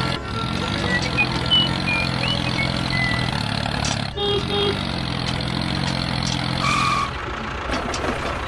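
Tractor engine sound effect running steadily under a miniature toy tractor, with a few short high chirps over it. The sound cuts off abruptly about four seconds in and starts again, and drops away a little after seven seconds.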